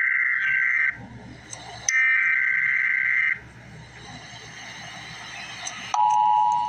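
Emergency Alert System SAME header data bursts: raspy digital screeches around two kilohertz, one ending just under a second in and another lasting about a second and a half from about two seconds in, with a low hum between them. These encode the alert's type and area. About six seconds in, the steady two-tone EAS attention signal starts.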